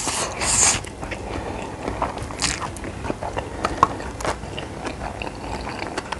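A person eating close to the microphone: a loud bite in the first second, then steady chewing with many small crunchy clicks.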